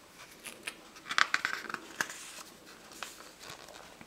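Pages of an illustrated book being turned by hand: a run of paper crinkles and flicks, busiest about a second in, with one sharp snap near the middle.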